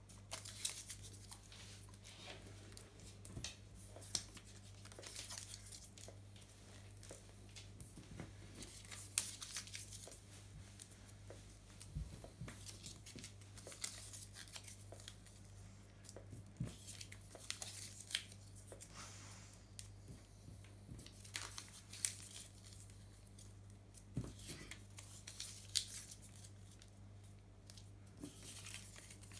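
Small slips of paper being crumpled by hand into balls, giving irregular bursts of crinkling and rustling.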